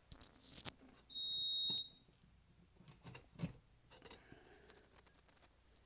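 FireLite fire alarm control panel's piezo sounder giving one high, steady beep of just under a second, about a second in, as the panel comes back on mains power. Several sharp clicks and knocks of handling come before and after it.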